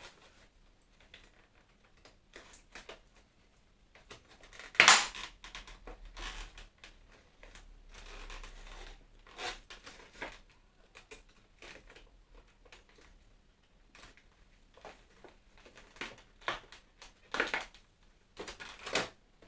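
Plastic figure parts and packaging handled during assembly: scattered clicks and crinkles, the loudest a sharp crinkle about five seconds in.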